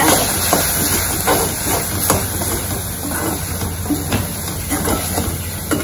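Chopped tomatoes and spice powders sizzling as they sauté in a pan, a steady hiss, with irregular scrapes and taps of a plastic spatula stirring them against the pan.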